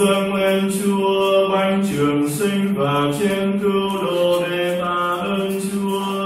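Liturgical chant at a Catholic Mass: voices sing a slow phrase of long held notes that move in steps.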